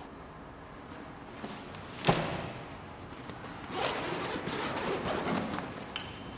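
A thump about two seconds in, then a backpack's zipper being pulled in short rasping strokes for about two seconds, with the fabric and padding of the pack being handled.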